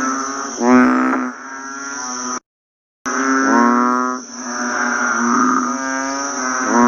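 Frogs croaking in a dense, overlapping chorus of deep pitched calls, with a steady high-pitched insect drone above them. The sound cuts out completely for about half a second a little over two seconds in, then resumes.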